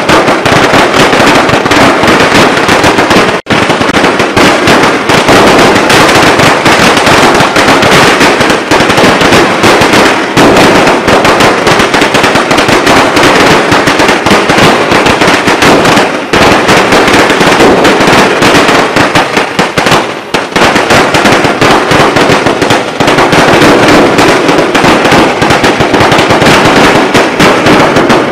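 Fireworks crackling: a dense, continuous run of rapid pops, loud throughout, with a brief break about three and a half seconds in.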